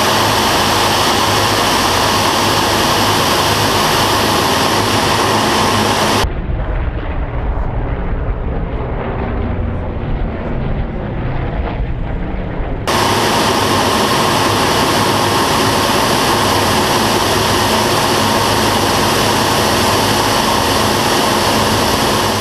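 The twin Pratt & Whitney R-2800 radial engines of a Grumman F7F Tigercat running steadily in flight, heard inside the cockpit with loud airflow noise. About six seconds in, the sound changes to the aircraft heard from the ground, a duller, more distant engine drone. It switches back to the loud cockpit sound a little before halfway.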